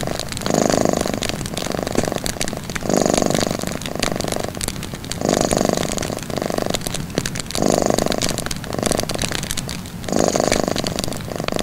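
A cat purring in slow, even swells about every two and a half seconds, with a wood fire crackling and popping throughout.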